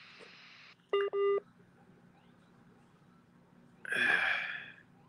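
Two short electronic beeps from a phone line, one right after the other about a second in, followed near four seconds by a brief burst of hiss over the line.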